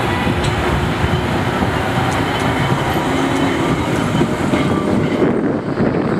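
Blackpool's illuminated heritage tram No. 736 rumbling past close by on street track, its wheels clicking a few times over the rails. Near the end the sound changes as a modern Bombardier Flexity 2 tram sweeps past.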